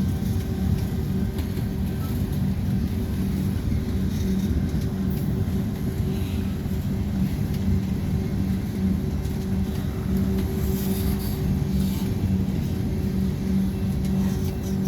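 Steady low vehicle rumble with a constant engine hum underneath, unchanging throughout.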